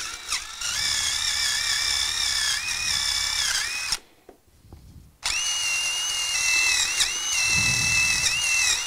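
Power wire wheel whining as it brushes rust and crud off the threads of a mower-deck spindle shaft, its pitch dipping briefly each time it bites into the threads. It stops about four seconds in and starts again about a second later.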